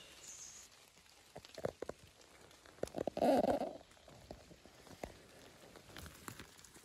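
Scattered light crackles and rustles of dry leaf litter and twigs, with one louder rustle about three seconds in.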